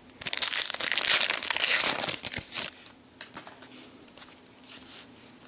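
Crinkling of a foil trading-card pack wrapper being handled and crumpled for about two and a half seconds, followed by faint ticks of cards being handled.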